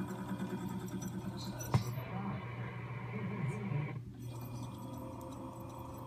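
1938 Zenith 12-S-268 tube console radio being tuned across the band: snatches of broadcast voice and static slide past over a steady low hum. There is a sharp crackle about two seconds in, and the sound drops out briefly about four seconds in as the dial passes between stations.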